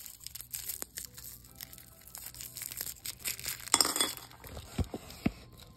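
Cellophane wrappers of Werther's Original hard caramel candies crinkling as they are twisted open by hand, loudest about four seconds in, with a few sharp clinks of the hard candies dropping into a china bowl near the end.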